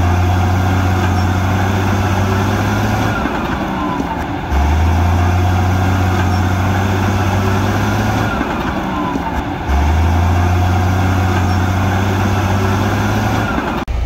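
Diesel engine of heavy earthmoving machinery running. A deep engine drone comes in for about three and a half seconds and drops away, repeating about every five seconds, with a brief break near the end.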